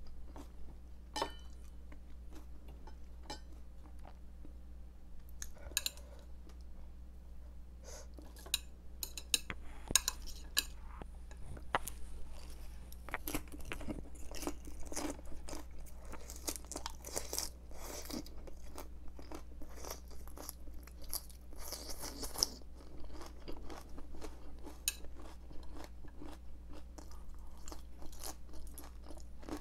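Close-miked chewing of crisp raw cabbage, a dense crackly crunching that is thickest from about twelve seconds in to near the end, with a few sharp clicks in the first ten seconds.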